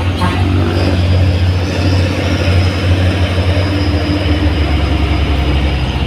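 Heavy diesel cargo trucks climbing a steep grade close by, their engines labouring under load in a loud, steady low drone as they pass one after another.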